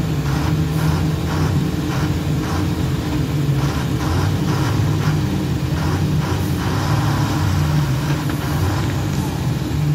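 Loaded heavy goods truck's diesel engine running at a steady idle, a deep drone with a faint regular beat about twice a second.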